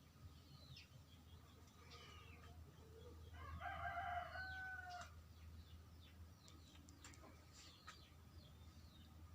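A rooster crows once, a held call of about a second and a half starting around three seconds in, over repeated short falling peeps from young chicks.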